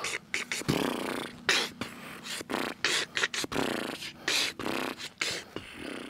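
A man beatboxing: a run of sharp mouth clicks, puffs and hisses at an uneven rhythm.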